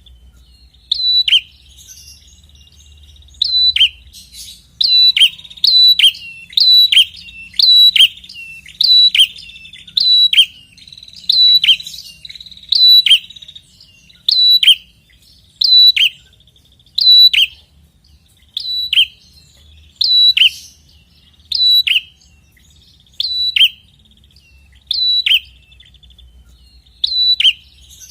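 Prenjak kepala merah singing insistently: a loud, sharp call repeated about once every second or so, each note dropping quickly in pitch, over a faint continuous high buzzing trill.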